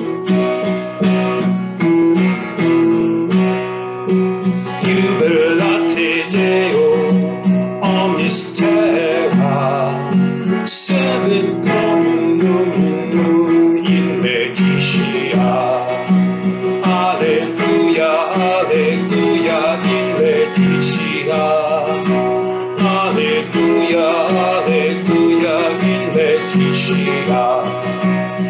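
Acoustic guitar strummed in a steady, repeating chord pattern, with a man singing a slow Taizé-style chant over it.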